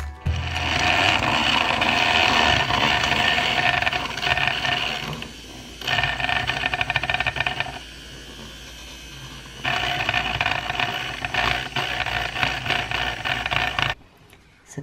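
A household appliance's electric motor running loudly in spells. It drops to a lower level for about a second after five seconds in and again for about two seconds after eight seconds in, then cuts off about a second before the end.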